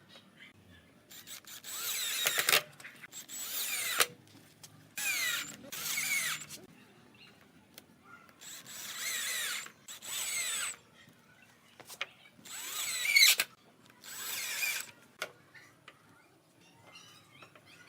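Power drill run in short bursts of about a second each, about eight times, with pauses between.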